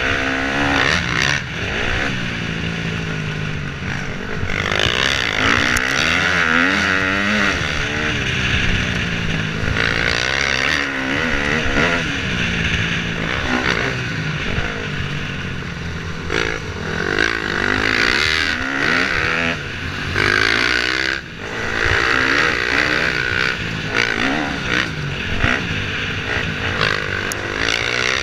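KTM 250 dirt bike engine being ridden hard, its pitch climbing and dropping again and again with throttle and gear changes, with a brief drop in level about three-quarters of the way through.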